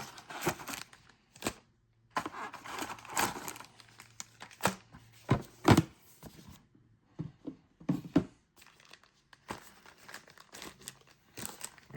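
A trading-card booster pack wrapper being torn open and crinkled by hand, in irregular rustles with a few sharp crackles, loudest about six seconds in.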